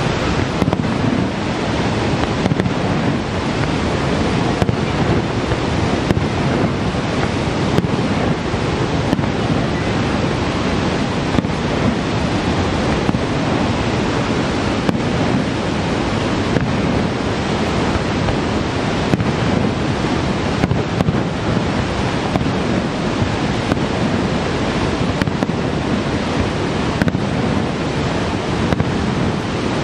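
Steady rush of a large waterfall's falling water, Niagara Falls, with a few faint scattered clicks.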